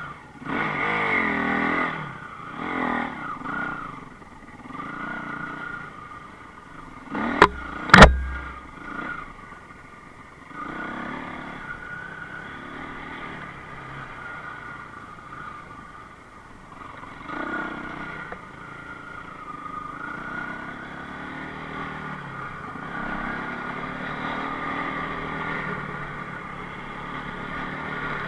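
Enduro motorcycle engine revving up and down as it rides, with two sharp knocks about seven and eight seconds in that are the loudest sounds.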